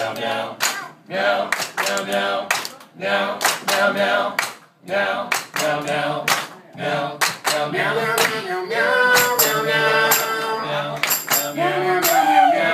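Rhythmic hand claps from a live band, about two claps a second, with singing over them; in the second half the voices hold long notes.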